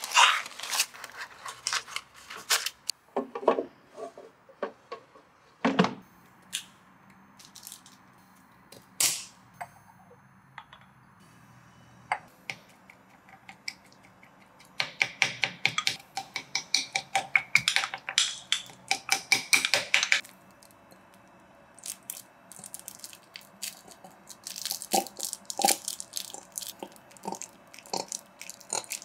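A wooden spoon knocking and scraping inside a glass tumbler as raspberries are mashed in it, with clicks of things being handled on a stone countertop. Midway comes a run of rapid taps lasting about five seconds.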